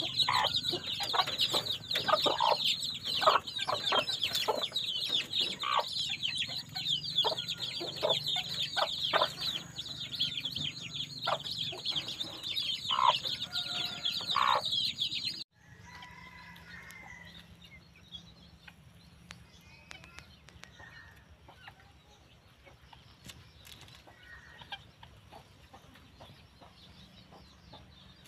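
A brood of chicks peeping nonstop in quick, high-pitched chirps, with a black junglefowl hen's low clucks among them. About halfway through, the sound cuts off abruptly to a much quieter stretch with only a few faint scattered chirps.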